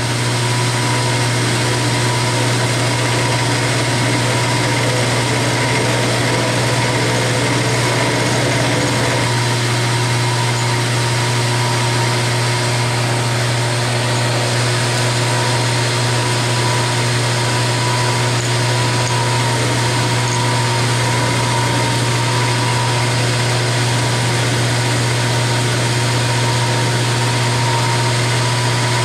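Milling machine running steadily while its end mill cuts an aluminium bar, a constant low hum with steady tones above it.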